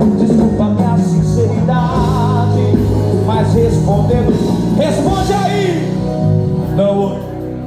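A Portuguese-language song: a singing voice over band accompaniment, played loud through a PA sound system.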